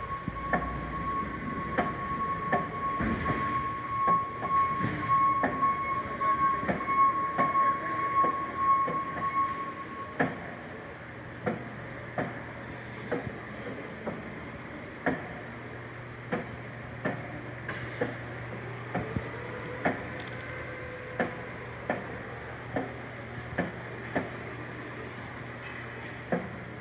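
Repeated knocking from a 4100-35fa machine, sharp knocks coming roughly once a second. For about the first ten seconds a steady high whine runs over the noise; after that a steady low hum remains under the knocks.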